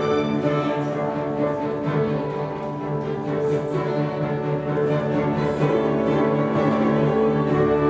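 A small live orchestra playing opera music, with bowed strings holding long, sustained chords.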